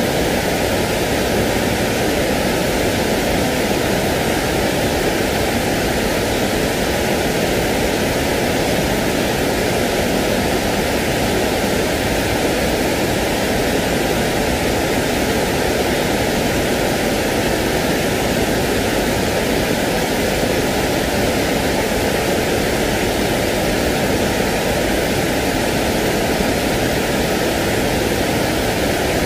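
Steady, unchanging hiss of white noise, played to soothe a crying baby to sleep.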